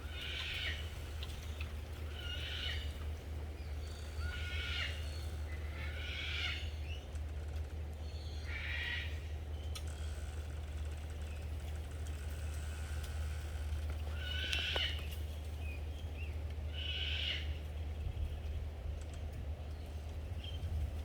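Seven short, high calls from an animal, about one every two seconds with a pause of several seconds midway, over a steady low rumble.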